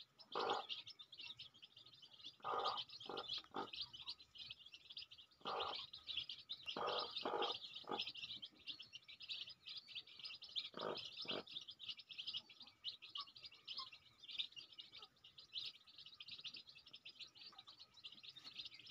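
A brood of country-chicken chicks peeping constantly in a dense high-pitched chorus, with a mother hen giving short low clucks in pairs and threes during the first two-thirds.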